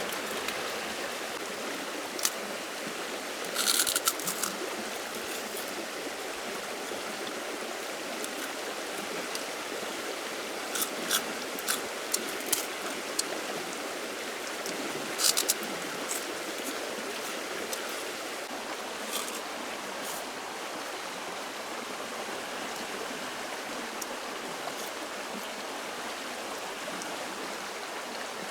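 Steady rush of running water, with a handful of short sharp clicks and snaps scattered through the first half.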